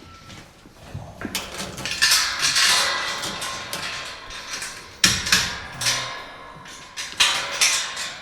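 Clattering and scraping, with sharp knocks about a second in, around two seconds, about five seconds in and about seven seconds in, each trailing off into a scraping rush.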